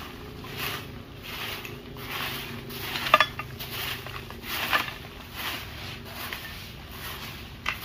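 Stick broom of palm-leaf ribs (sapu lidi) sweeping leaves and debris, in regular scraping strokes about once a second, with one sharp clink about three seconds in.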